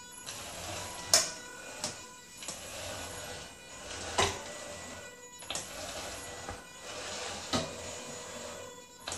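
Homemade robotic wet mop's drive motors whirring in spurts of a second or two with brief pauses as it moves and turns, with several sharp clicks, the loudest about a second in and about four seconds in.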